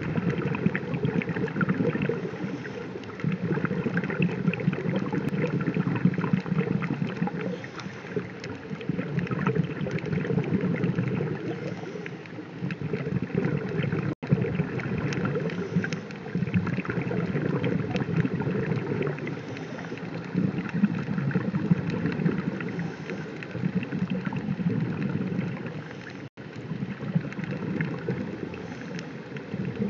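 Underwater ambience over a coral reef, picked up by an underwater camera's microphone: a steady rushing noise peppered with fine crackling clicks, swelling and easing every few seconds. It cuts out for an instant twice.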